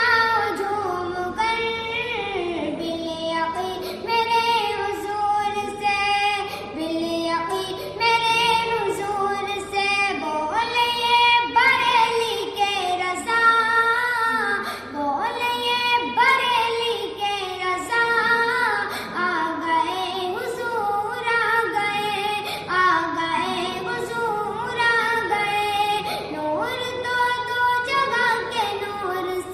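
A high voice singing a naat, an Islamic devotional hymn, in a smooth, gliding melody.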